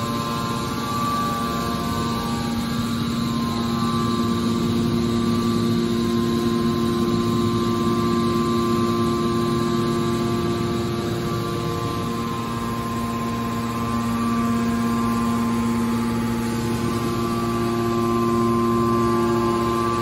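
Electric motor and hydraulic pump of a scrap steel wire baler running with a steady hum of several constant tones, which weaken for a few seconds around the middle and then come back.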